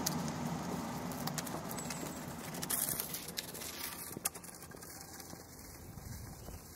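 Cabin ambience of a Portland streetcar standing at a stop: a low steady hum with scattered light clicks and taps, and a short hiss a little before the middle. It grows slightly quieter toward the end.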